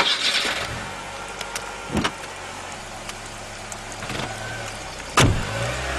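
Car engine idling in heavy rain, with a car door thumping shut about two seconds in and again, louder, about five seconds in; the engine note rises after the second thump.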